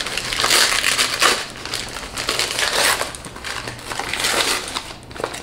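Gift-wrapping paper crinkling and rustling in irregular bursts as it is pulled and torn off a small box by hand.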